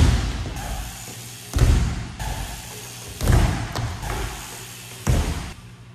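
BMX bike wheels slamming onto plywood ramps: four heavy thuds about a second and a half to two seconds apart, each fading out quickly.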